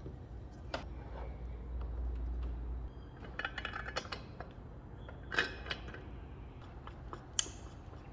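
Scattered metallic clinks and taps from stainless nuts and threaded tension rods being handled and run on at the end of a steel battery-clamp bracket, a few with a short ringing tail. A low rumble about two seconds in.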